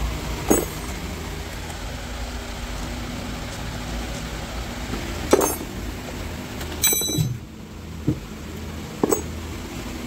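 Metal parts knocking and clinking five or six times at irregular intervals, the loudest about halfway through, over a steady low workshop hum.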